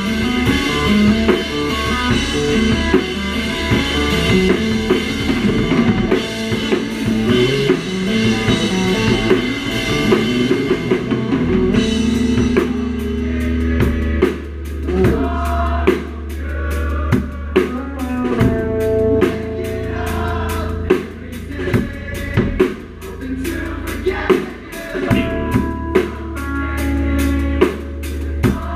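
Live math-rock band playing, with the drum kit loud and close over electric guitar and bass. For about the first twelve seconds cymbals wash over everything; then the cymbals drop out and the drumming turns to quick, sharp strokes under picked guitar notes.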